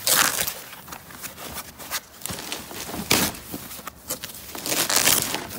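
Bubble wrap and foam packing rustling and crinkling as hands pull it away, with loud bursts at the start, about three seconds in and again near the end.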